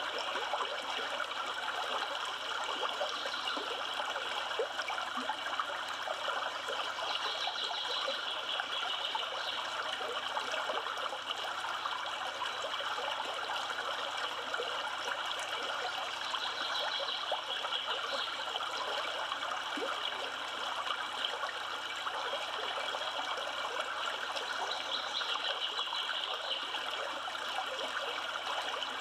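River water flowing and trickling steadily, a continuous even rush.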